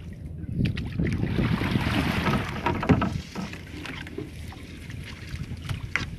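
Wet gill net being hauled by hand over the side into a small outrigger boat: water splashing and dripping off the mesh, loudest in the first few seconds, over a low steady hum and wind on the microphone.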